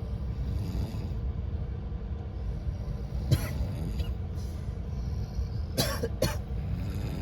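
Passengers snoring over a train's steady low rumble, with a loud harsh snort about three seconds in and two more in quick succession near the end.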